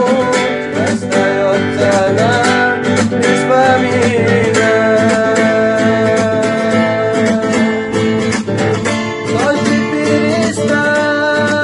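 Music: a Chechen guitar song, with plucked acoustic guitar under a held, wavering melody line.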